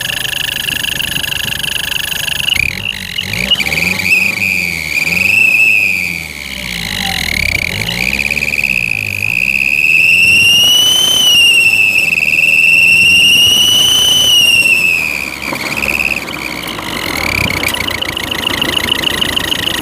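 Homemade turbo-whistle made from a soda can clamped over a car's exhaust tailpipe, whistling loudly as the exhaust blows through it, its pitch rising and falling with the engine's revs over the engine running underneath. The whistle peaks highest about eleven seconds in and turns fluttery near the end.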